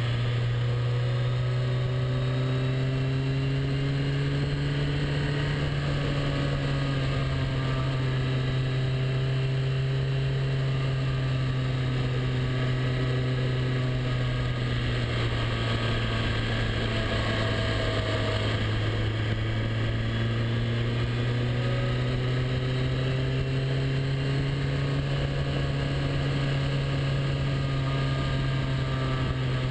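Motorcycle engine running at a steady cruise, its note drifting gently up and down with the throttle through the bends, over a steady rush of wind and road noise.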